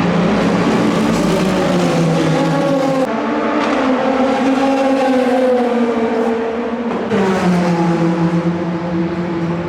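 Race car engines running on track at speed, their note gliding up and down. The sound changes abruptly about three seconds in and again about seven seconds in.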